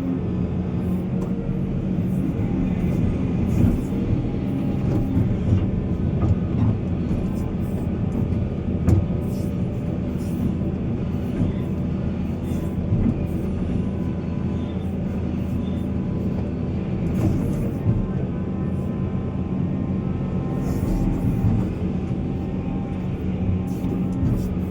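Heavy diesel mining machinery running steadily under load, with scattered short knocks and clanks.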